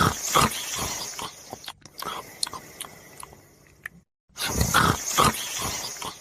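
Snoring: a loud, rasping snore of about a second and a half, then quieter breathing noises. After a brief cut to silence a little past four seconds, the same loud snore comes again.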